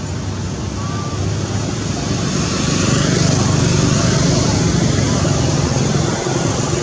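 Motor-vehicle engine and road noise running steadily, growing louder about halfway through and easing a little near the end.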